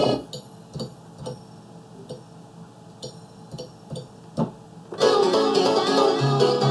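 Music played through a software turntable worked by a hard-disk-platter jog controller. The loop cuts out just after the start, leaving a few seconds of short, faint stabs and clicks, then it comes back in loud about five seconds in.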